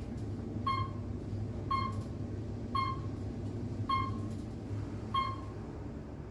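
Elevator car's floor-passing beep: five short electronic tones about a second apart as the car climbs past each floor, spacing out slightly near the end as it slows. Under them is the steady low hum of the car in motion.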